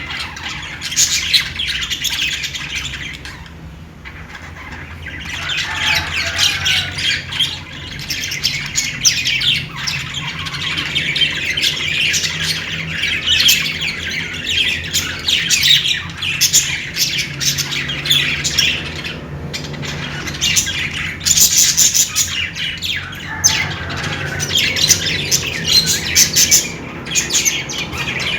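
Budgerigars chattering and warbling: a dense, unbroken stream of rapid chirps and squawks that eases off briefly about four seconds in.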